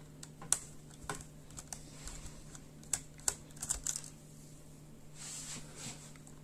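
Scattered small clicks and taps of a screwdriver and tiny stainless steel screws being handled over a laptop keyboard, with a short soft rustle about five seconds in. A faint steady low hum runs underneath.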